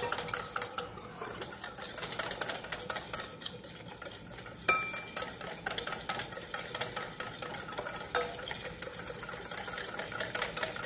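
Wire whisk beating an egg mixture in a glass bowl: rapid, even clicking of the wires against the glass, with one sharper ringing clink about halfway through.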